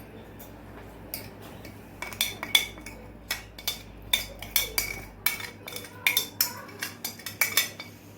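Metal kitchen utensils clinking and clattering against cookware: many short, sharp, ringing knocks at an uneven pace, starting about a second in and coming thick from about two seconds on.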